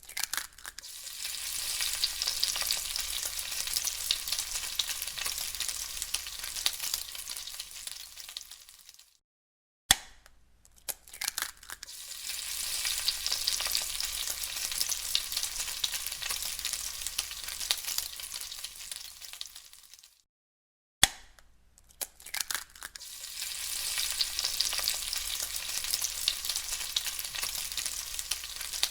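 Egg frying in a hot pan, sizzling steadily. The sizzle stops twice for a short silence, and each time it comes back with a sharp click and swells up again.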